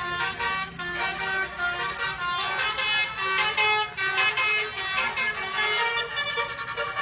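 Bus 'telolet' basuri horn, a multi-tone air horn, playing a quick tune of stepping notes.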